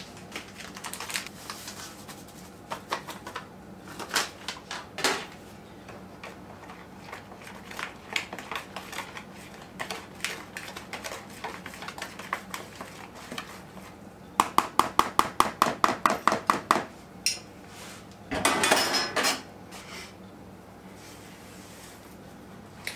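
Cornbread batter being stirred with a Swedish dough hook in a mixing bowl: scattered knocks and clicks of the utensil against the bowl, then partway through a fast run of taps, about eight a second for a couple of seconds, and a few seconds later a brief noisy rush.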